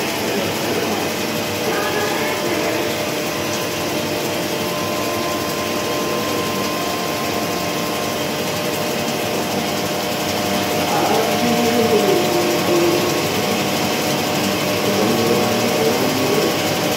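CNC lathe taking a rough turning cut on a large spinning metal disc: a steady machining noise with several held tones, getting a little louder about eleven seconds in.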